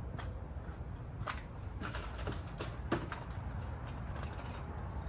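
Small brake hardware being handled: scattered light clicks and taps, the sharpest about three seconds in, over a steady low background rumble.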